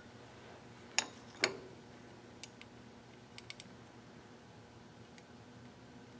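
Light metallic clicks and taps from a telescoping gauge being worked in and drawn out of a freshly bored motor end bell, two sharper clicks about a second in, then a few faint ticks, over a faint steady hum with the lathe stopped.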